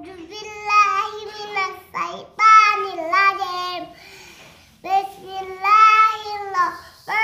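A young boy singing unaccompanied in a child's voice: three long phrases of held, wavering notes, with short pauses for breath between them.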